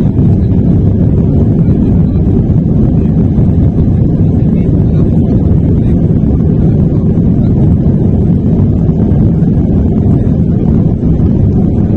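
Airbus A319 heard from the cabin during the takeoff roll: the engines at takeoff thrust make a loud, steady, low rumble.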